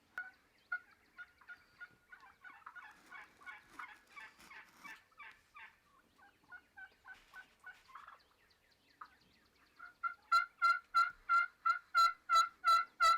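Turkey yelping: soft, quick calls at first, then about ten seconds in a loud, evenly paced yelp series of about ten notes, roughly three a second.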